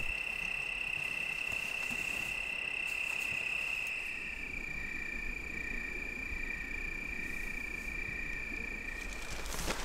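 Crickets trilling steadily at dusk: one continuous high trill, joined about halfway through by a second, slightly lower trill that wavers.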